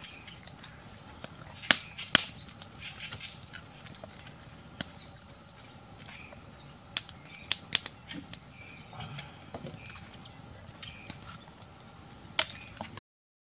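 Birds chirping in repeated short rising calls over a high, steady insect buzz, with scattered sharp clicks and snaps; the sound drops out briefly near the end.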